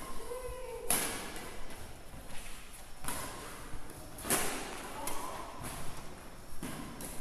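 Badminton rackets striking a shuttlecock back and forth in a rally, giving sharp hits about a second or two apart.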